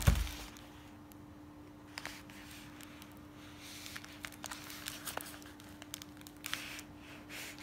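Hands handling a taped-up plastic parcel: faint rustles and small clicks of fingers on the wrapping, after a loud bump right at the start. A steady hum runs underneath.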